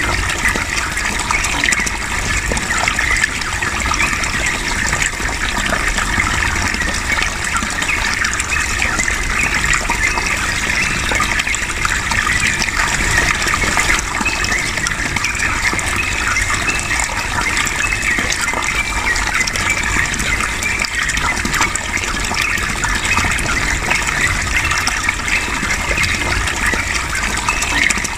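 Steady gushing of running water, with the chattering song of a yellow-vented bulbul (trucukan) blended in underneath.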